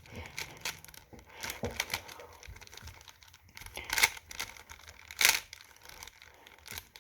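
GAN 356i Carry speed cube being turned fast by hand: quick runs of plastic clicks and clatter from its layers, with two louder snaps about four and five seconds in.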